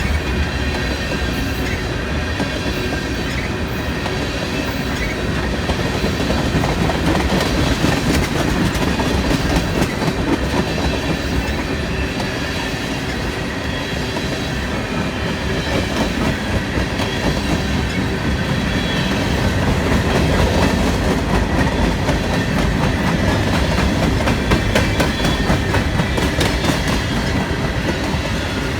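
CSX freight train's cars rolling past at a steady speed, wheels clicking rapidly and continuously over the rail.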